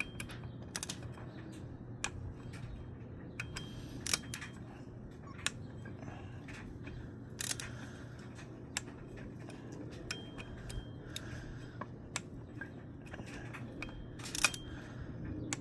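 Scattered small metallic clicks and taps from hand tools working the bolts of a supercharger pulley hub as they are tightened, over a steady low hum.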